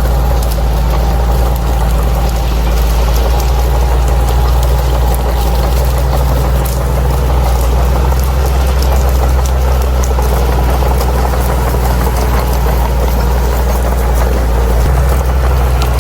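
Crawler bulldozer's diesel engine running steadily with a low rumble.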